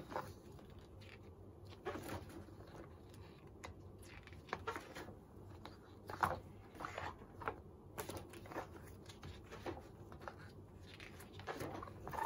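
Thick photobook pages being turned by hand in a ring binder: paper rustling and flapping down several times, with the loudest page turn about six seconds in.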